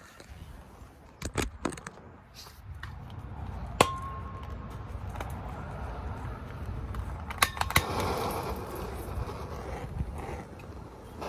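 Hand work on vehicle wiring: scattered clicks and knocks of parts being handled, with one sharp metallic tap about four seconds in that rings briefly, over a low steady rumble.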